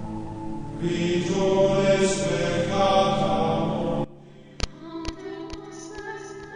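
Choral chanting music: layered voices holding sustained notes. It cuts off abruptly about four seconds in, followed by about five sharp struck hits over a quieter held tone.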